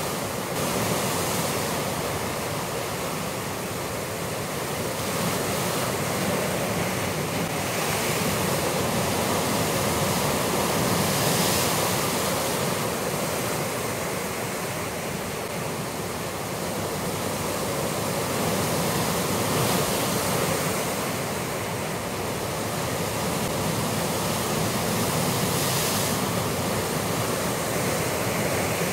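Sea surf breaking and washing against a rocky shore: a steady rush of water that swells and eases every several seconds.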